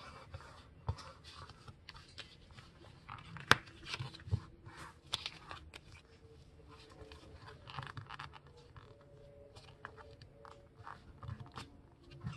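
Sheet of printer paper being folded and creased by hand: irregular rustling and crinkling with scattered sharp taps, the loudest about three and a half seconds in.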